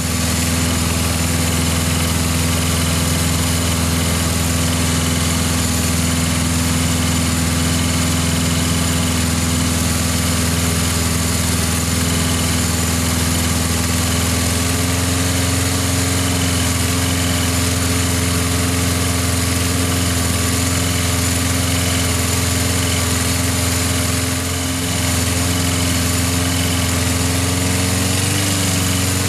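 Briggs & Stratton single-cylinder four-stroke engine on a Lawn-Boy commercial walk-behind mower running at a steady speed, being run longer to warm up after its rebuild. Its loudness dips briefly about three quarters of the way through, and its pitch rises slightly near the end.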